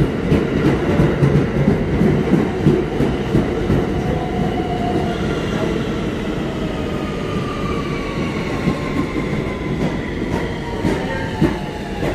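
New York City subway R160 train running past along the platform, wheels clacking over rail joints. From about halfway in, a motor whine falls steadily in pitch as the train slows.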